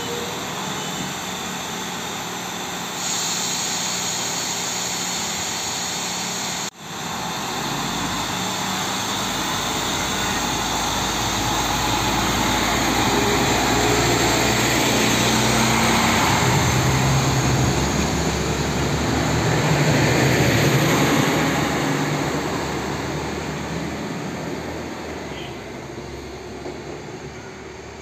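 SA132 diesel railcar pulling out and accelerating past, its diesel engine rumbling and rising in pitch, loudest as it passes and then fading as it moves away.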